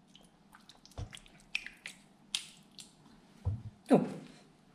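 Wooden spoon stirring thick simmering salsa in a stainless steel pot: a few irregular soft squelches and knocks, the loudest near the end.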